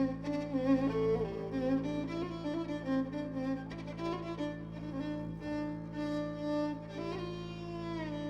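Violin playing an Arabic song melody with vibrato and pitch slides over a steady low sustained accompaniment.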